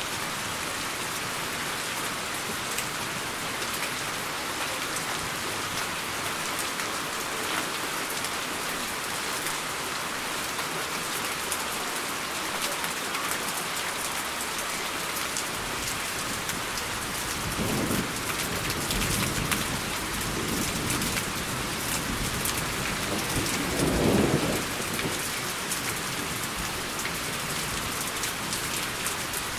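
Steady rain hiss with thunder rumbling in from about halfway through, swelling twice, the second roll louder.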